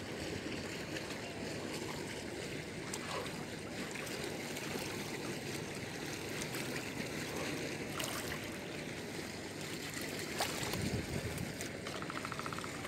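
Small waves lapping against a concrete seawall, a steady wash of water, with a few faint clicks.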